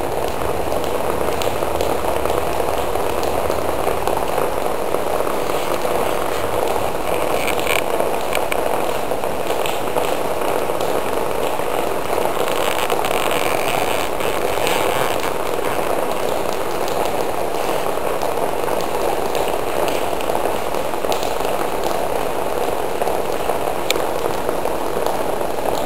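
Steady rain, a constant even hiss of falling water, with brief sharper spells of drops about a third of the way and about halfway through.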